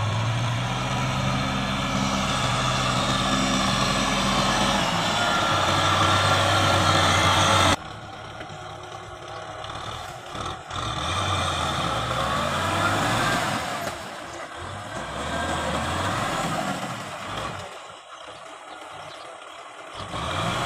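Kubota M6040SU tractor's diesel engine running as it plows. The sound drops abruptly about eight seconds in, after which the engine pitch rises and falls.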